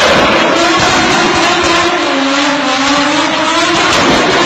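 Toyota JZ-series straight-six engine held at high revs in a burnout, its pitch wavering up and down, over the noise of the rear tyres spinning against the pavement.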